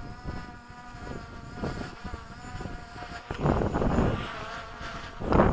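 DJI Mavic Pro quadcopter hovering, its four propellers giving a steady, slightly wavering high buzz. Gusts of wind blow across the microphone now and then.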